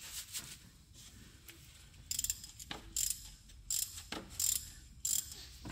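Hand ratchet wrench clicking as it turns a starter mounting bolt. The first two seconds are quiet; after that come short bursts of clicks, about one burst every second, one for each back-stroke of the handle.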